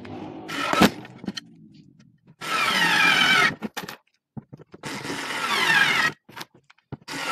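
Daewoo 3.6 V lithium cordless screwdriver motor running in short bursts of about a second, twice, with a third starting near the end; its whine falls in pitch during each burst.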